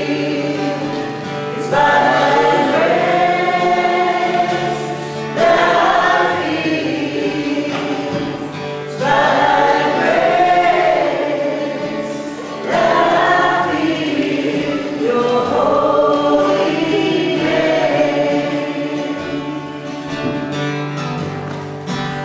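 A small group of women singing a devotional song together, in repeated phrases that each start strong and fade, over a soft guitar accompaniment.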